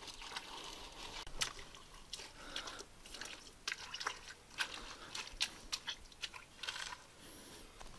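Hands packing wet clay and gravel around the rim of a small spring pool: irregular gritty crunches, clicks of stones and small splashes of water.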